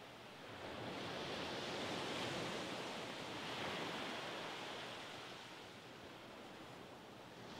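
Small waves breaking and washing up a sandy beach: a rush of surf that swells about a second in and fades again after about five seconds.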